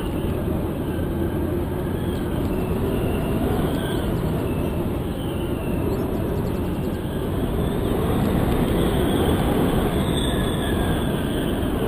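Wind rushing and buffeting over the microphone of a GoPro hung from a kite line, a steady loud rush with a faint high whistle that wavers up and down in pitch now and then.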